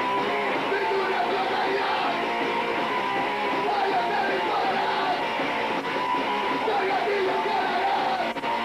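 Punk band playing live, electric guitar to the fore. The recording is thin and muddy, with little bass.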